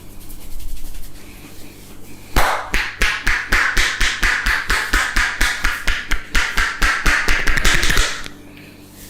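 Percussive head massage: hands striking rhythmically about five times a second in a fast, even run of sharp slaps. The run starts a couple of seconds in and stops shortly before the end.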